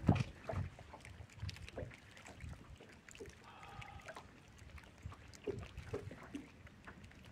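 Small waves lapping and slapping against a bass boat's hull in irregular low thumps, with scattered small clicks and knocks. A sharp knock comes right at the start, and a brief pitched call sounds about halfway through.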